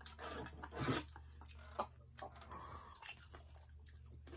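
Close-up eating sounds: chewing with scattered small crunches and wet clicks, a few of them louder, the loudest about a second in.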